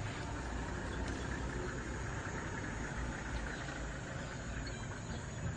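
Safari vehicle's engine idling: a steady low rumble.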